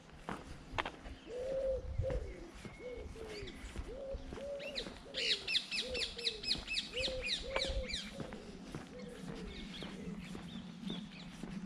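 Birds singing: a fast, high trill of quick descending notes lasting a couple of seconds in the middle, over a long run of short, low cooing notes.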